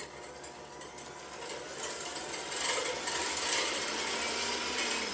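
Electric hand mixer running, its beaters whipping cream in a stainless-steel bowl, steady and getting louder about two seconds in. Near the end the motor is switched off and its pitch falls as it winds down.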